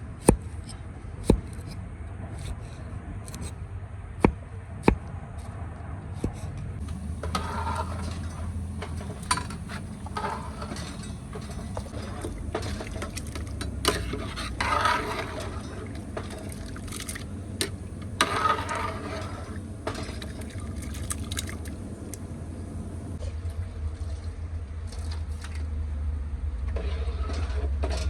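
Cooking-work sounds: a few sharp utensil knocks in the first five seconds, then several short bursts of scraping or liquid noise, over a steady low rumble.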